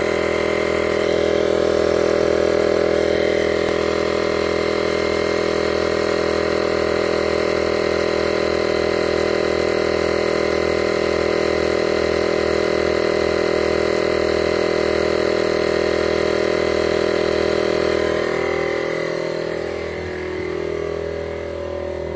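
Tire air compressor running steadily with a rhythmic pulsing, then winding down and stopping near the end, leaving a faint hum.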